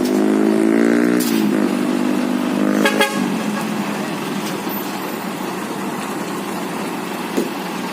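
A vehicle horn sounds, holding one steady pitch for about the first second, then stops. Traffic noise from engines in a stalled hill-climb jam follows, with a short sharp blip about three seconds in.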